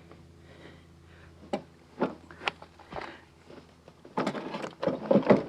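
A heavy car battery being lowered into its tray in a van's engine bay: a few sharp knocks, then about four seconds in a burst of clatter and scraping as it is settled in place.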